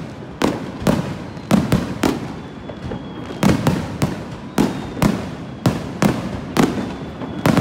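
Aerial firework shells bursting overhead in quick succession: sharp bangs about two a second, each trailing off in a short echo.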